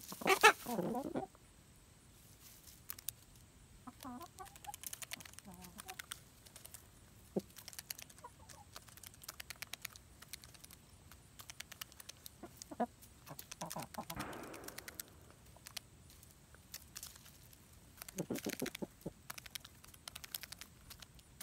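Buff Orpington pullets clucking while pecking at a pile of sunflower seeds, their beaks tapping the seeds in scattered sharp clicks. The loudest call comes about half a second in, with a few more short bursts of clucking later.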